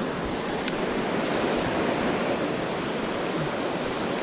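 Fast-flowing river water rushing steadily over a rocky riffle, with a single brief high click a little under a second in.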